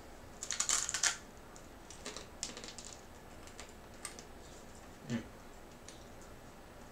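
Crunching of dry, hard ramen-noodle chips being bitten and chewed: a dense burst of crisp crunches about half a second in, then scattered lighter crunches, with a brief low voice-like sound about five seconds in.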